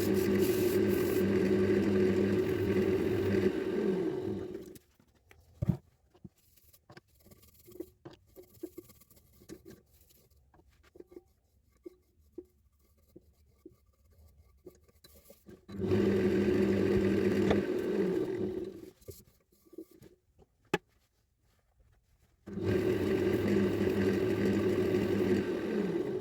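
Wood lathe running while an abrasive rubs against a spinning walnut dish, in three stretches. Twice the lathe is switched off and hums down in falling pitch, leaving pauses with small handling clicks and taps before it starts up again.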